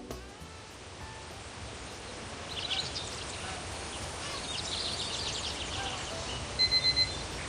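Digital kitchen timer alarm beeping in a quick run of short, high electronic beeps near the end, over a steady background hiss with a few faint bird chirps.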